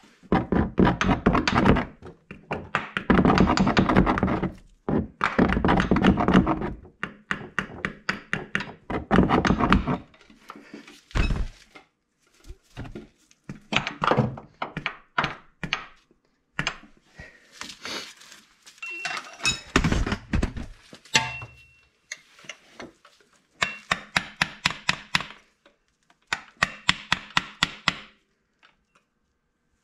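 Mallet tapping a new front crankshaft seal into its bore on a Saab 9-5 engine: rapid taps in bursts of a second or two, with short pauses between, more spread out in the second half.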